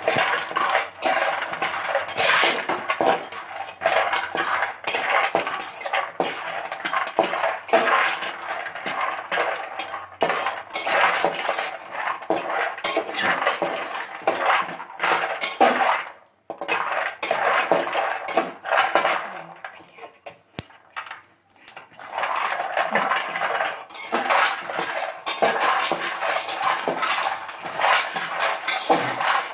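Metal spatula scraping and stirring almonds around a metal pan as they dry-roast on the stove, the nuts rattling and clicking against the metal. The stirring stops briefly about halfway through and again a little later.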